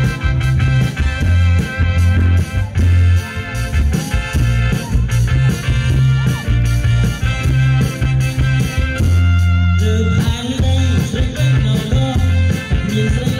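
Loud Cambodian dance music played over a PA, with a heavy, steady bass beat.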